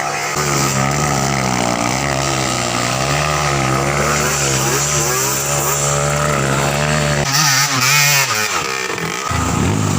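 Dirt bike engine running and revving up and down, the pitch wavering unevenly; about seven seconds in the sound changes, with a louder rush of noise and a brief dip before the engine comes back.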